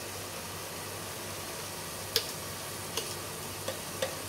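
Grated carrot halwa sizzling steadily in a nonstick pot over the gas flame. Four light knocks of the spatula against the pot come in the second half.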